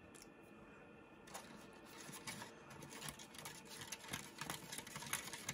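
Small plastic spoon stirring gummy-mix powder and water in a plastic candy-kit tray: faint, quick scraping and light ticks of plastic on plastic, starting about a second in.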